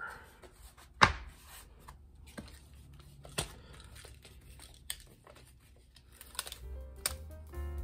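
Hands handling a stack of thin wooden lamination strips and a tape measure on a plywood board: a few sharp wooden clacks and taps, the loudest about a second in. Background music comes in near the end.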